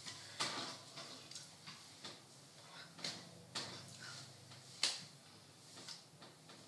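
Hands tapping and brushing against the body and clothing while signing, giving soft, irregular clicks and rustles, with the sharpest tap about five seconds in.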